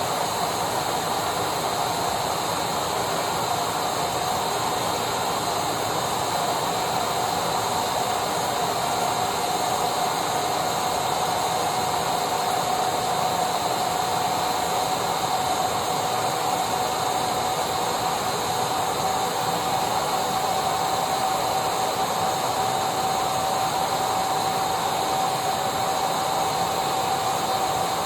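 Vacuum cleaner motor running steadily, a continuous rushing hum with a whine in it that edges slightly higher in pitch about ten seconds in.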